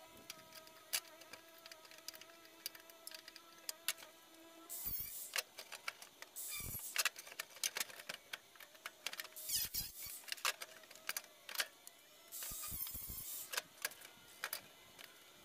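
Light scattered clicks and taps of a sheet-metal fender and hand tools being handled while the fender is lined up against the body, with a few short bursts of hiss. A faint steady hum stops about four seconds in.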